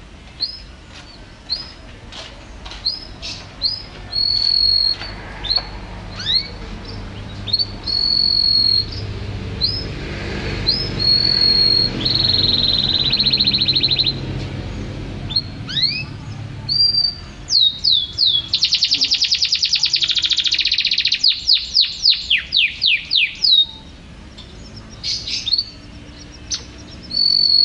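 Domestic canary singing: a string of short rising chirps and held whistles, a fast trill about halfway through, then a very rapid rolling trill followed by a run of quick sweeping notes.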